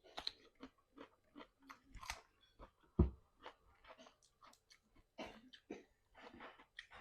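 Close-up chewing and mouth smacking of fried chicken with green chilli sambal: irregular wet clicks and crunches, with one louder thump about three seconds in.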